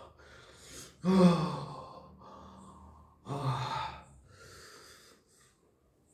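A man sighing and gasping: two short voiced exhalations, the louder about a second in and another about three seconds in, with noisy breaths between them.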